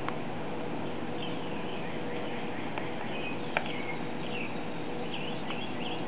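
Small birds chirping repeatedly over a steady hiss, with a few sharp clicks, the loudest about halfway through.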